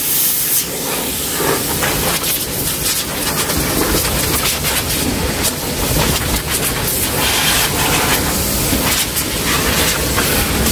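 Loud, steady rushing-air hiss with a low rumble from a car-wash air hose nozzle working inside a car's trunk, with uneven crackling and fluttering as the nozzle moves over the contents.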